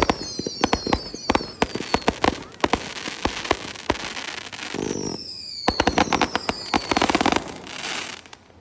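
Fireworks going off in rapid sharp cracks and bangs, with several high whistles falling in pitch, dying away near the end.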